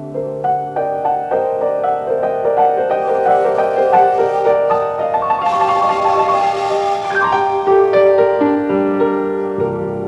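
New-age instrumental music played from cassette tape: a piano playing a flowing run of many quick notes.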